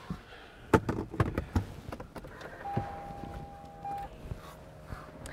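A few sharp clicks and knocks inside a car, then one steady electronic beep about a second and a half long, with a fainter lower tone carrying on under it.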